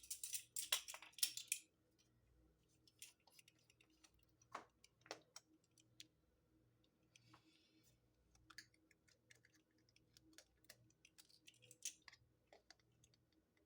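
Faint, scattered clicks and taps of spice containers and a measuring spoon being handled while dry mustard is measured out, with a short rustling scrape in the first two seconds.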